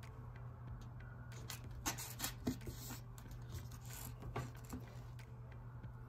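Fingers rubbing and pressing a strip of tape down onto a sheet of paper, with small rustles, scrapes and clicks of paper and hand, busiest from about two to three seconds in and again briefly near four seconds. A low steady hum lies underneath.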